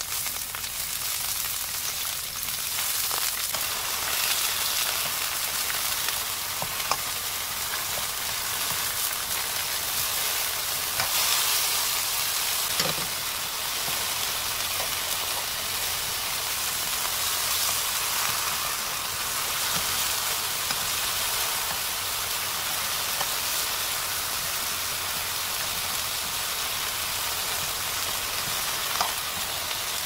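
Sliced king oyster mushrooms sizzling in plenty of hot oil in a nonstick frying pan as they brown, a steady hiss. A few light clicks come from the utensils turning the slices.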